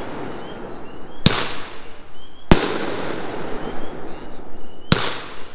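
Class B 'Insight' seven-shot circular firework cake firing: three sharp reports about a second, two and a half and five seconds in, each followed by a fading rush of noise.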